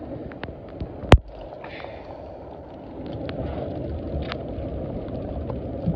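Steady wind rumble on the microphone over an open boat, with light rain ticking here and there and one sharp knock about a second in.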